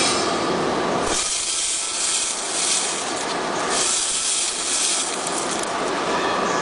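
Rivet-making machines running: a full-range mechanical clatter, then from about a second in a loud hiss with little low end that swells and fades several times.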